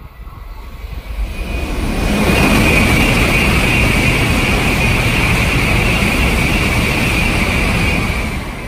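Tokaido Shinkansen bullet train passing through the station at speed without stopping. A rushing sound builds over about two seconds, holds loud with a high-pitched hiss for about six seconds, then starts to fade near the end.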